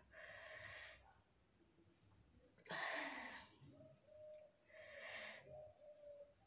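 A person's quiet, hissing breaths through the mouth, three in all, about two seconds apart, the middle one the loudest: a reaction to the burn of hot chillies.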